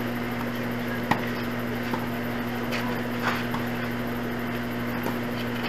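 Tennis ball struck by rackets during a doubles rally: a few sharp pops at uneven spacing, the loudest about a second in, over a steady low hum.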